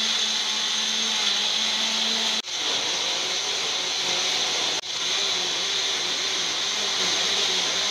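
Small electric blender running at full speed, grinding blanched spinach with green chillies, ginger, garlic, coriander and cumin into a paste. The motor cuts out for an instant twice and starts again.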